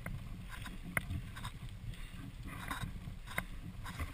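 Mountain bikes rolling down a gravel track: a steady low rumble of tyres on loose gravel, with scattered sharp clicks and rattles from the bikes.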